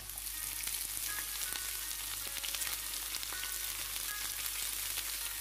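Chopped, freshly washed amaranth leaves sizzling and crackling in hot oil with browned garlic and dried chilli. The sizzle jumps up as the wet greens go into the pan at the start, then keeps on steadily with many small crackles.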